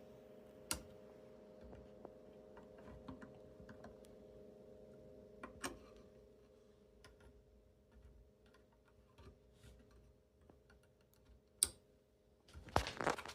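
Faint scattered clicks and taps of hands working an M.2 SSD and its small retaining latch on a motherboard, over a steady faint hum. Sharper clicks come just under a second in, around the middle, and loudest near the end.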